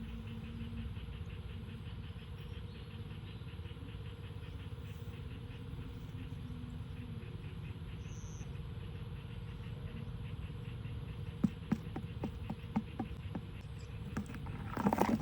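Steady fast insect chirping over a low rumble, with a few sharp clicks or knocks in the last few seconds.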